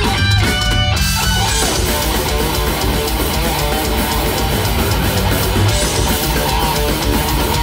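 Heavy metal band playing live, with distorted electric guitars over bass and drums. A single held note at the start gives way to the full band about a second in.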